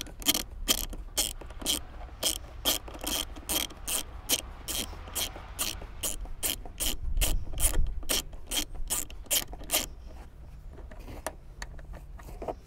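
Hand ratchet with a 14 mm socket clicking at an even pace, about four clicks a second, as it unscrews a seat belt anchor bolt. The clicking stops about ten seconds in, leaving a few scattered clicks.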